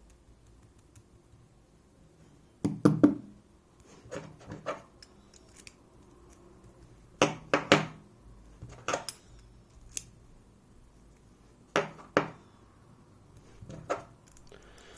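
Sharp metallic clicks and knocks from lock-picking tools working an EVVA 3KS cylinder, in scattered groups of one to three, as the picked core is tried again and again but won't slide out.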